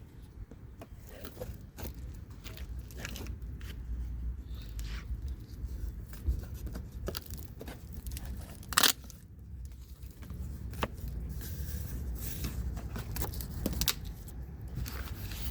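Cardboard packaging being torn open and handled while unboxing a steel anvil: scattered tearing, scraping and crinkling, with one sharper, louder noise about nine seconds in.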